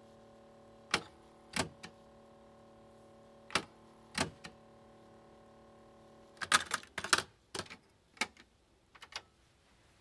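Mechanical clicks and clacks from a Yamaha K-550 cassette deck's transport keys and eject mechanism as the tape is stopped, ejected and pulled out. The loudest is a quick cluster of clacks about six and a half seconds in. A low steady hum runs until that cluster, then stops, and a few scattered clicks come before and after.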